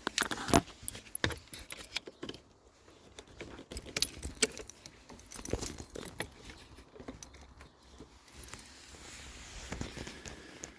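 Keys jangling, with scattered clicks and rattles of handling.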